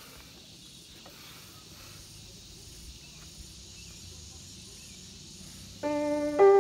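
Steady high-pitched hiss of outdoor background with a couple of faint clicks. Electric piano music starts near the end.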